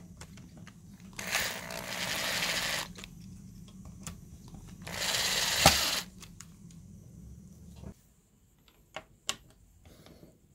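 Cordless drill driving a ski-binding screw at a low torque setting, in two short runs of about a second and a half and about a second, with a sharp click near the end of the second run. A few faint clicks follow.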